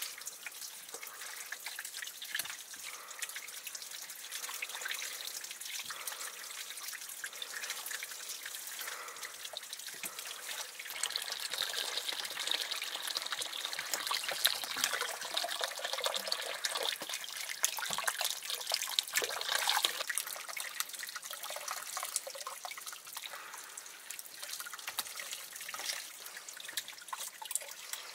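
Water trickling and splashing, with small drips and clicks, growing louder about a third of the way through.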